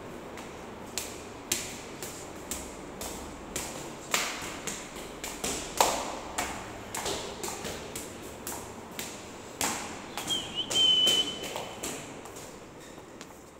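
Footsteps climbing polished granite stairs, sharp knocks at about two a second. A short high squeak comes about three quarters of the way through.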